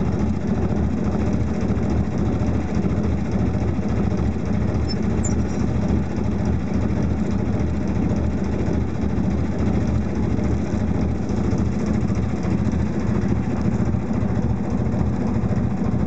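A boat's engine running steadily, heard from on board: a constant low drone that does not change in pitch or level.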